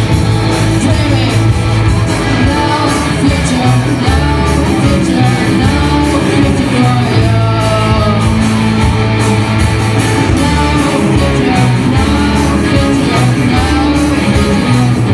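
Live rock band playing a song with electric guitars and a sung vocal, heard from the audience in a large hall.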